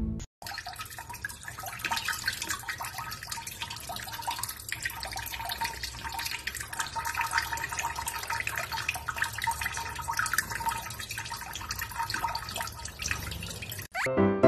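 Water running from a kitchen tap and splashing into cupped hands and the sink, a steady rush with many small splashes and drips.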